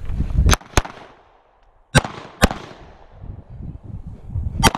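Compact semi-automatic back-up pistol fired five times: two quick shots about half a second in, a pause, two more about half a second apart near the middle, and one more near the end, each with a short echo. A low rumble comes before the first shot.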